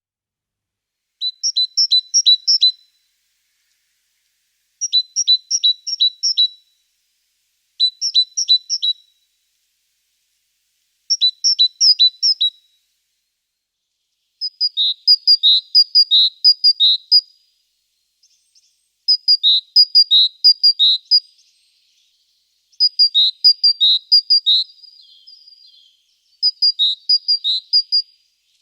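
A songbird singing short phrases of quick, high, repeated notes, about eight phrases with a second or two of silence between each.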